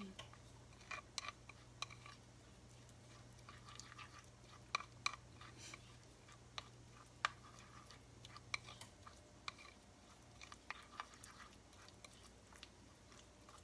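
Silicone spatula stirring and scraping thick ube paste in a bowl, with the ube powder absorbing boiling water: faint, irregular squishing and light clicks.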